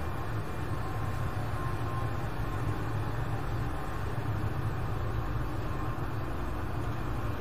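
Ship's engine-room machinery running: a steady low drone.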